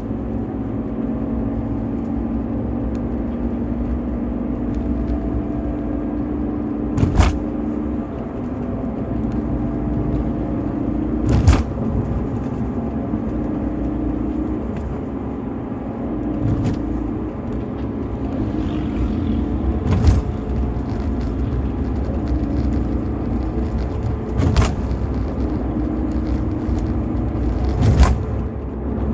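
BMW E46 320i's stock 2.0-litre M52TU B20 inline-six engine running steadily through its standard exhaust. A sharp knock cuts in every few seconds, about six times.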